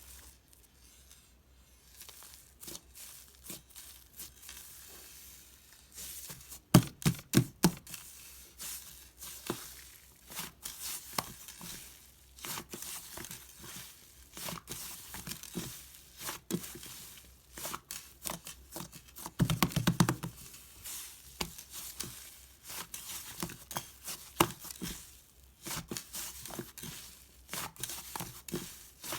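White cloud slime being stretched and squeezed by hand, its fluffy texture tearing with a dense, irregular crackle. Two bursts of rapid popping come about 7 and 20 seconds in.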